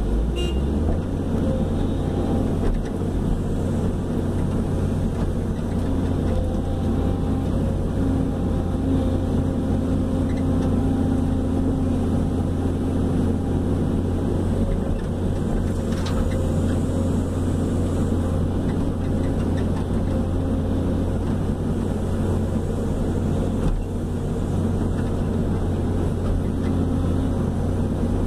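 Hydraulic excavator's diesel engine running steadily under working load, heard from inside the operator's cab, with the machine's tone shifting slightly as the boom and bucket are worked.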